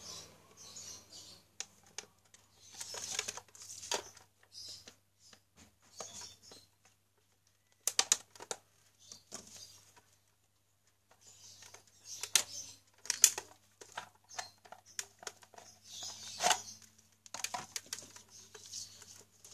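Hands and a screwdriver working on a stand fan's white plastic motor housing: irregular clicks, taps and scrapes of plastic and metal, with a few sharper clicks, as the casing is unscrewed and pulled apart from the motor.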